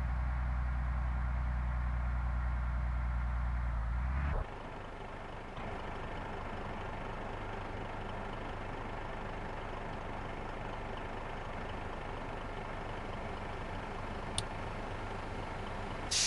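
Bus diesel engines idling with a steady hum; about four seconds in the sound drops suddenly to a quieter, rougher idle. A short sharp hiss comes right at the end.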